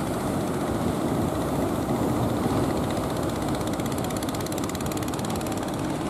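Engines of wooden fishing boats running as they push through the surf, over the steady rush of waves. A fast, even beat in the engine sound is clearer in the second half.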